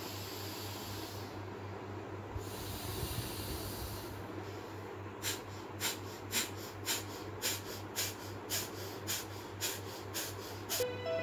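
Pranayama breathing through the nose: slow, hissing breaths through one nostril at first, then from about five seconds in a rhythm of short, forceful nasal exhalations, about two a second.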